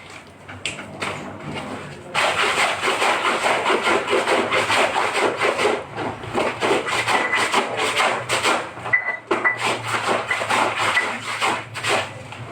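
Hand-scrubbing laundry: fast, continuous rubbing strokes start about two seconds in and stop near the end, over a low steady hum.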